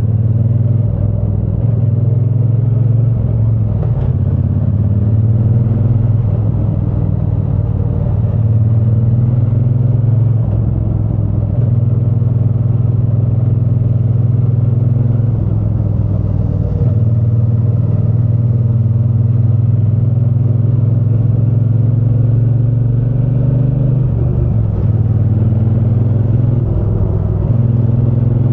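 Triumph Bonneville T120 parallel-twin engine and exhaust running under way at a steady cruise, with the note easing off and picking up again a few times as the throttle changes.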